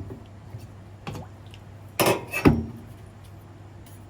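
A combination whetstone and its holder clattering on a worktop as the stone is turned over to its 3000-grit side. There are a few light clicks, then a louder clatter and a dull knock about two seconds in, as the stone is set back down.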